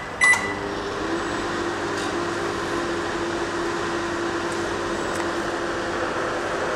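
A microwave oven keypad beeps once at the start, then the oven starts and runs with a steady hum, heating a bowl of water.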